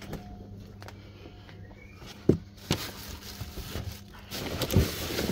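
Lid of a large commercial wheelie bin being opened, with a sharp knock a little over two seconds in and a second one just after. Cardboard boxes and plastic packaging then rustle and knock as a gloved hand rummages through the bin's contents.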